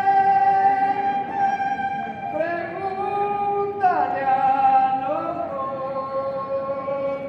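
Argentine folk music with a high melody of long-held notes, which slides down in pitch about four seconds in and then settles on a lower held note.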